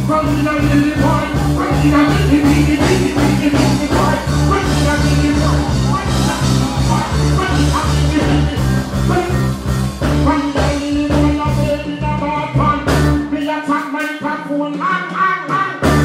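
Live band playing a dancehall rhythm through the PA, with a repeating bass line and drums and a performer vocalising over it on microphone. The bass drops out about two seconds before the end, leaving the voice and higher instruments.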